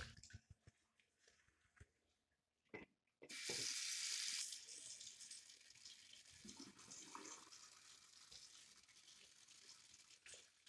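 Tap water running from a chrome faucet into a bathroom washbasin, faint and steady, with a louder rush for about a second some three seconds in.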